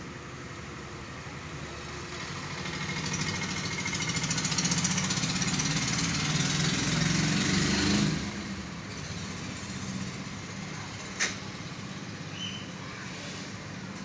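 A running engine's low rumble with hiss. It grows louder over several seconds, drops away abruptly about eight seconds in, and is followed by one sharp click.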